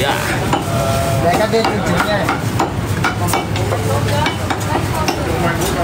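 Irregular knocks and clatter of a cleaver chopping roast meat on a wooden chopping block, over a steady low rumble of street traffic, with a few brief voice fragments.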